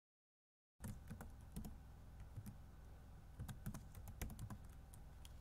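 Computer keyboard typing: quick, irregular key clicks over a low steady hum, starting after about a second of silence.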